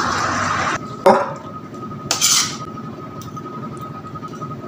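Tomato-sauce stew simmering in a pan with a steady sizzle that cuts off under a second in. Then a metal ladle knocks once against a ceramic bowl and scrapes and clinks as the stew is spooned in.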